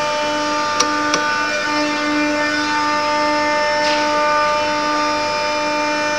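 CNC wood milling-engraving router running, giving a steady whine of several tones whose lower tone cuts out and resumes every second or so as the axes move. Two sharp clicks come about a second in, and there is a short hiss about four seconds in.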